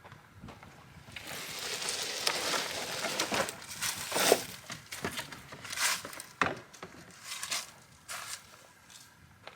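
Picnic table being dragged over the ground: a long scrape about a second in, then a string of shorter scrapes and knocks as it is shifted into place.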